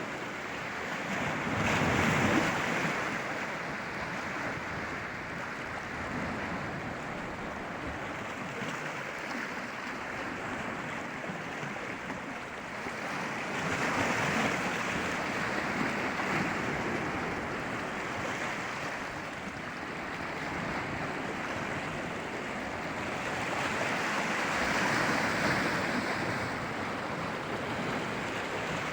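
Sea waves surging and breaking on the shore, a steady wash with three louder swells about ten to twelve seconds apart.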